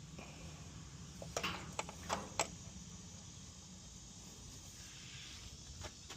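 A few short, sharp clicks and knocks of tools or parts being handled during an oil change, bunched together between one and two and a half seconds in, with a couple more near the end, over a steady low rumble.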